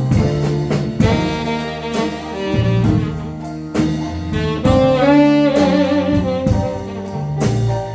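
Band playing an instrumental ballad passage: a lead melody line with vibrato over bass notes and chordal accompaniment.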